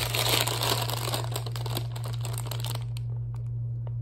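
Foil snack bag crinkling as it is handled, dying down after about two and a half seconds, over a steady low hum.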